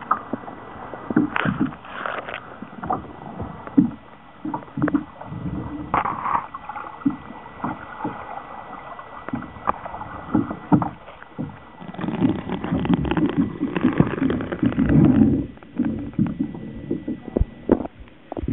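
Muffled water sloshing and splashing heard through a camera held under water beside a kayak, with many short knocks and bumps and a louder stretch of sloshing about two-thirds of the way in. A faint steady high whine runs underneath and stops near the end.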